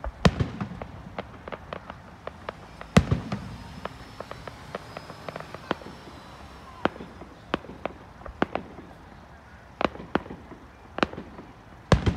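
Aerial fireworks shells bursting: heavy booms at the start, about three seconds in and again near the end, with a scatter of sharp crackling pops between them.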